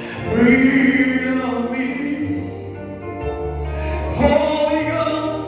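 Gospel worship music: a voice sings long, drawn-out notes over sustained chords and a bass line.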